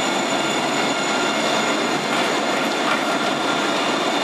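An Alstom Citadis 302 low-floor tram running close by on street track: a steady rolling noise of steel wheels on rail, with several thin, high-pitched tones held over it.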